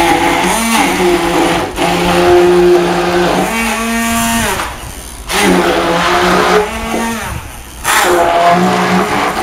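Hand-held immersion blender running in three bursts down in a tall beaker of ricotta and cooked mushrooms. The motor whine shifts in pitch as the blade meets the thick mix. It winds down with a falling whine about four seconds in, then starts up again twice.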